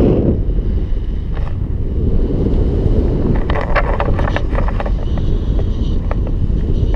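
Wind from a paraglider's flight buffeting the microphone of a pole-mounted camera: a steady, loud low rush. There is a cluster of sharp crackles about halfway through.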